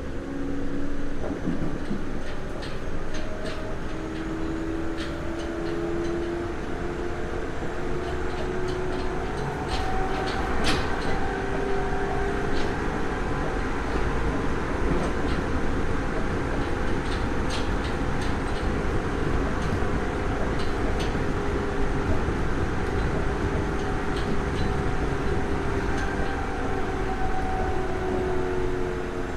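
Nagoya Municipal Subway 3000 series electric train running between stations. The whine of its armature-chopper traction control and motors comes through as several steady tones that drift slowly in pitch, over a constant rumble of wheels on rail with scattered clicks, some in small clusters.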